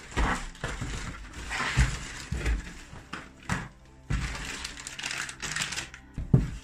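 Crumpled newspaper packing rustling and a cardboard shipping box scraping as items are pulled out by hand, with irregular clicks and knocks of small packages; the loudest knock comes near the end.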